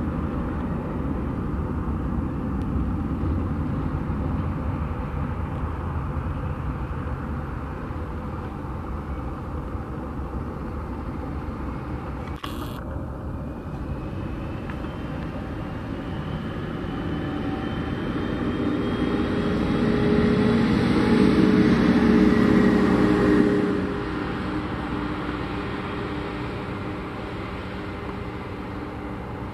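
Airbus A321's CFM56 jet engines on final approach: a steady low rumble that swells with a whine about two-thirds of the way in, then drops off sharply to a quieter rumble.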